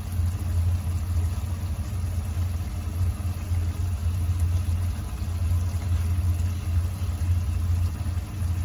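Steady low hum of a kitchen fan, unchanging throughout, with the adobo sauce bubbling faintly in the wok.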